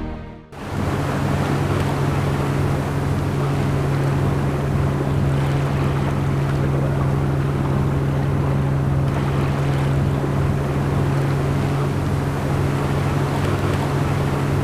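Fishing boat's engine running steadily while under way, a constant low drone, with water rushing past the hull and wind on the microphone.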